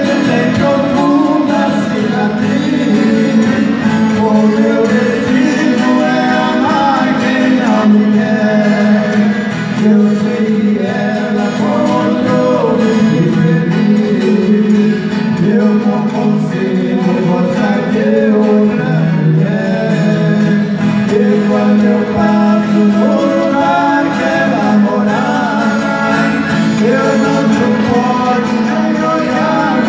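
Male voices singing a Brazilian sertanejo song, accompanied by two acoustic guitars and an accordion, performed live.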